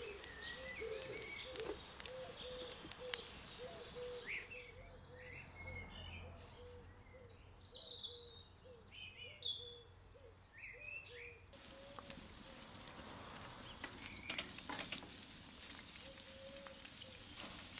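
Food sizzling on a wood-fired steel garden grill and in a frying pan, with an occasional crackle from the fire and garden birds singing. In the middle the sizzle drops away for several seconds, leaving only the birdsong.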